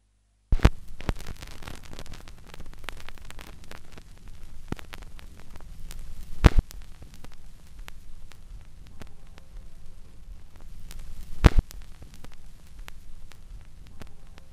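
Steady low hum and hiss with scattered clicks and crackles, starting about half a second in; three sharp pops stand out, near the start, about six and a half seconds in and about eleven and a half seconds in.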